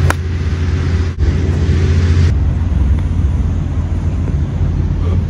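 A vehicle running with a steady low rumble, with one sharp click just after the start.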